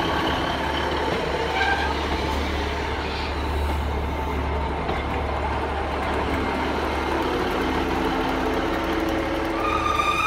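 A GWR diesel multiple-unit train running slowly past along the platform as it pulls in, with a low engine hum and wheel noise. A brief high squeal comes near the end as it slows to a stop.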